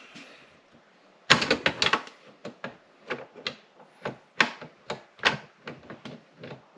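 Metal rifle parts clicking and clacking as they are worked into place during reassembly: a quick cluster of clicks about a second in, then a run of separate clicks.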